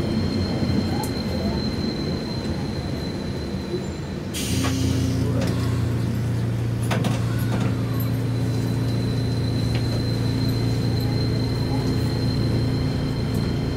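Chikuho Electric Railway tram heard from the driver's cab while moving slowly. About four and a half seconds in there is a short hiss of air, and then a steady low hum sets in and holds while the tram creeps toward the platform. A faint high whine runs throughout.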